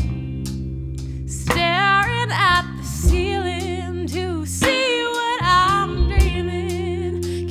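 Live band music: a woman singing with vibrato over electric bass and guitar, her voice coming in about a second and a half in after a short instrumental stretch.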